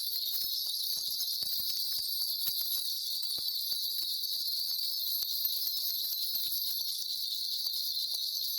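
A cluster of small metal ritual bells shaken steadily, giving a continuous high jingling shimmer with faint scattered clinks.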